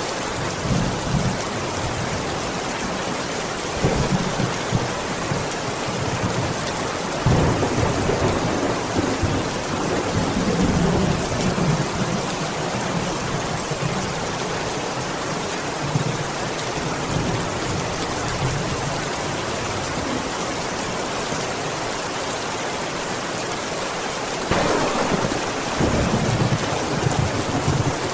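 Steady heavy rain with low rumbles of thunder rolling in and out, swelling several times, most strongly about a third of the way in and again near the end.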